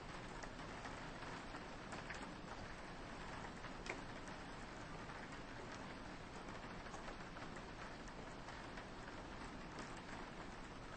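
Soft rain falling on a window: a steady hiss with many small drop taps, one a little sharper about four seconds in.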